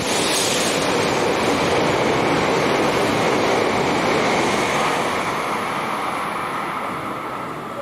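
Shinkansen bullet train rushing past along the platform at speed, a loud even roar of air and wheels that slowly dies away over the last couple of seconds.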